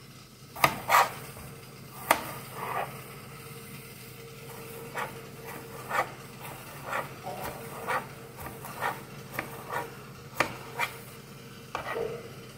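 Chef's knife chopping tomatoes on a plastic cutting board: a string of irregular sharp knocks of the blade on the board, the loudest about half a second, a second and two seconds in.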